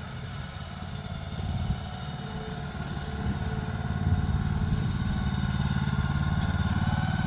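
A machine's engine running steadily at a low idle-like pace, growing louder about three to four seconds in. It is the engine of the building mover's equipment lifting the horse shelter.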